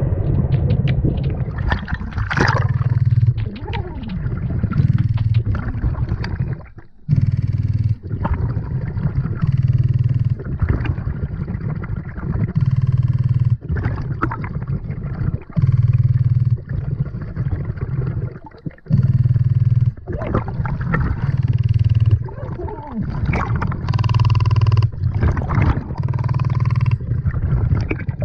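Underwater breathing through a BLU3 NEMO diving regulator, heard from a camera mounted on the diver's head. Each exhale comes out as a burst of rumbling bubbles, roughly every three seconds, with quieter inhales between.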